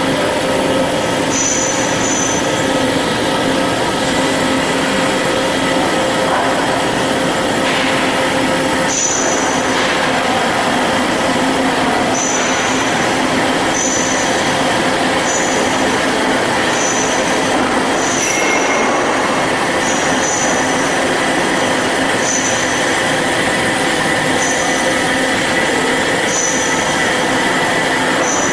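Industrial band saw running, a loud steady metallic whine holding several tones, with short high-pitched squeaks every second or two.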